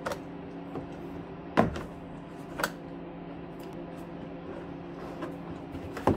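Plastic storage tote handled while burrs are cleaned from a freshly drilled hole: a few sharp hollow knocks and light scraping of plastic, the loudest knock about a second and a half in, over a steady low hum.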